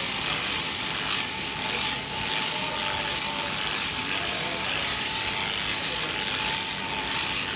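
Sheep-shearing machine handpiece running steadily as its cutter clips through a sheep's fleece, a steady mechanical buzz with a constant whine.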